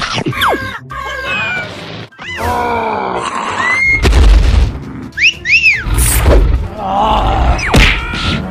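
Cartoon soundtrack of music and sound effects: cartoon character voices yelling and grunting, swooping whistle-like pitch slides, and heavy low booms about four and six seconds in.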